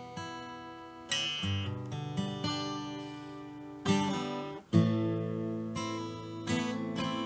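Background music of strummed guitar chords, a new chord struck every second or two and left to ring.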